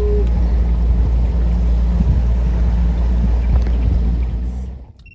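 An engine running steadily under heavy wind rumble on the microphone, cutting off abruptly near the end.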